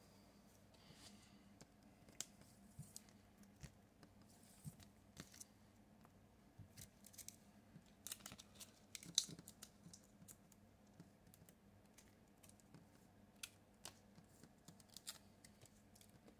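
Faint clicks and light plastic rustles of sleeved Pokémon trading cards being picked up off a table and gathered into a stack, with a busier run of handling sounds about eight to nine seconds in and one sharper click just after nine seconds.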